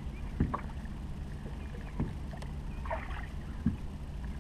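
Sounds aboard a fishing boat: a steady low hum, with three dull knocks on the boat about a second and a half apart.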